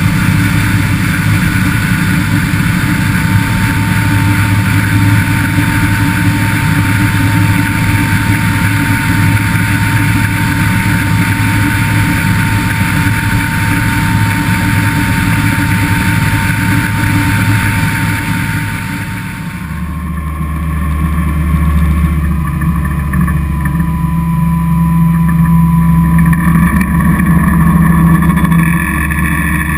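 Yanmar 370 hp V8 diesel of a motorboat running at speed, a steady engine drone over water rushing past the hull. Just before two-thirds of the way through, the sound changes abruptly to a deeper, heavier engine note with the churn of the wake.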